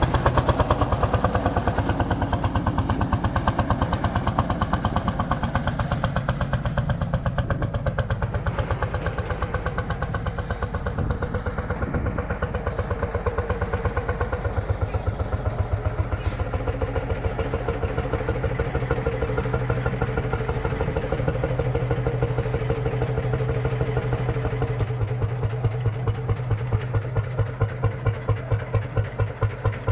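Lanz Bulldog's single-cylinder two-stroke hot-bulb engine running at idle with its rapid, even beat. Near the end the beats grow slower and more distinct.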